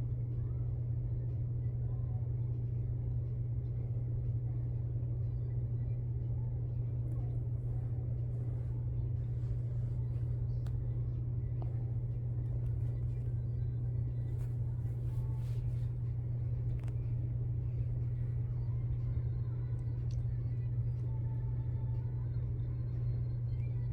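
A steady low hum with a low rumble beneath it, unchanging throughout, with a few faint ticks about midway.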